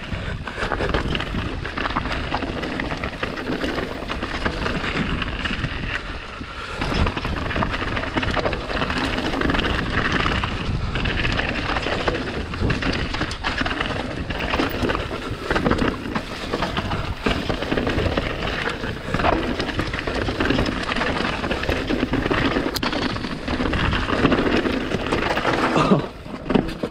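Mountain bike riding a rough trail: rumbling wind on the microphone and tyres rolling over rocky ground, with a constant clatter of knocks and rattles.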